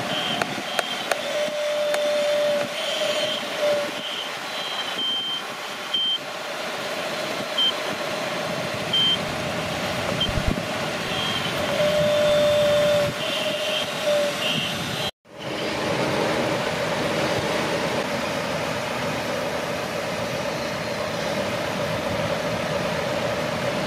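An RC excavator's electric motors whine in short on-off spells as the boom and bucket work. About 15 s in the sound cuts out briefly, and then the steadier motor whine of an RC Volvo 6x6 articulated dump truck runs as it drives.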